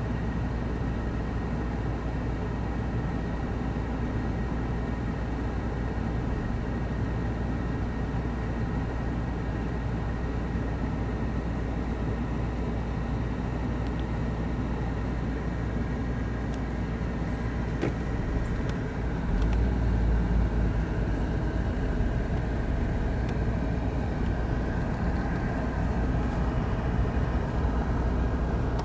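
Kawasaki Voyager XII touring motorcycles' inline-four engines running at low speed as the bikes creep along at walking pace, a steady rumble that grows louder about twenty seconds in.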